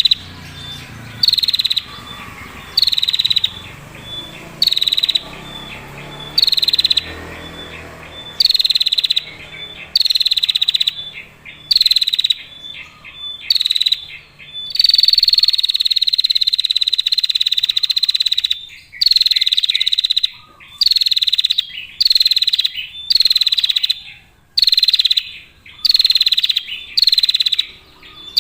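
Female prinia (prenjak) giving its rattling 'ngetir' call: a run of short, high, buzzy trills, each under a second and about one to one and a half seconds apart, with one long trill of about four seconds midway.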